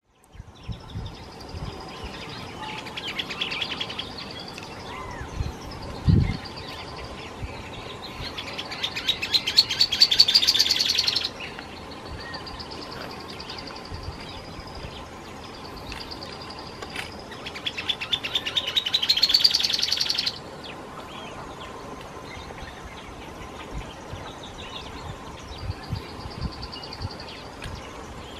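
Dusky-tailed canastero (Pseudasthenes humicola) singing twice, each song a rapid trill of sharp repeated notes that speeds up and grows louder for about three seconds, then stops abruptly. Fainter high drawn-out whistles come between the songs, and there is a single low thump about six seconds in.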